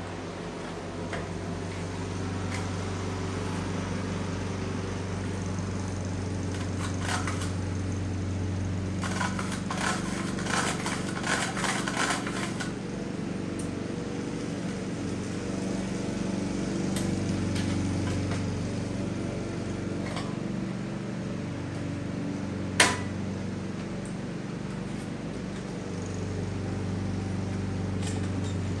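A steady low mechanical hum, like a running motor, with scattered clicks and knocks of hand work over it. A quick rattle of clicks comes about a third of the way in, and one sharp knock about three quarters in.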